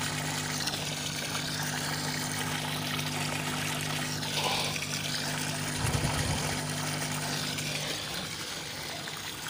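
Water steadily trickling and splashing into a fish pond from an inlet pipe, under a low steady hum that stops about eight seconds in. A soft low bump comes about six seconds in.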